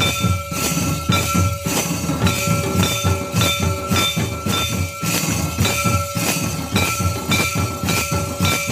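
Barrel drum beaten in a steady, quick rhythm with jingling, over a few steady high ringing tones.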